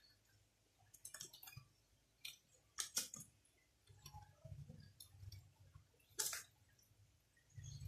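Faint scattered clicks and rustles of things being handled: a cluster in the first three seconds and one sharp click about six seconds in, with a low rumble between about four and five and a half seconds.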